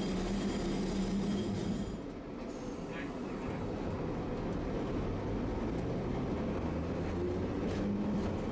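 Streetcar heard from inside its cabin while running along the track: a steady rumble of wheels on rail with a low hum that stops about two seconds in and comes back near the end.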